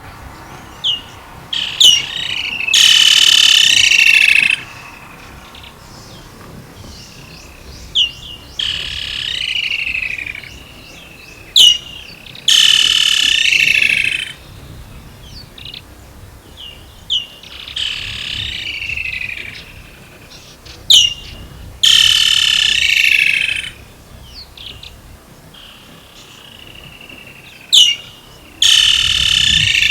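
Woodland kingfisher calling: sharp single notes each followed by a loud, rapid, descending trill of about two seconds, four times, with fainter trills in between.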